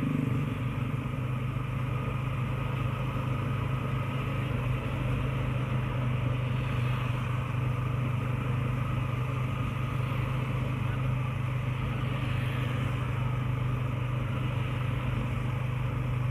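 Motorcycle engine running at a steady cruising speed: an even low drone with wind and road noise over it, no change in throttle.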